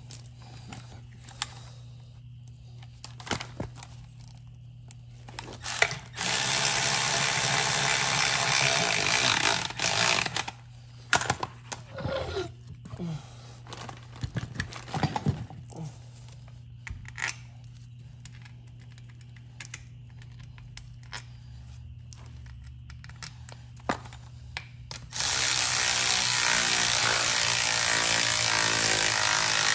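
Cordless power ratchet running in two long spells of about four seconds each, driving in the bolts that hold a Graco airless paint sprayer's pinion housing. Between the runs come scattered clicks and knocks of metal parts being handled and fitted.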